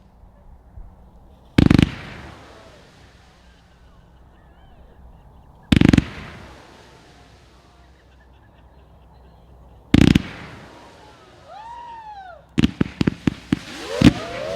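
Low-noise consumer fireworks firing: three single sharp bangs about four seconds apart. Near the end a rapid string of pops breaks out, with whistling tones that rise and fall.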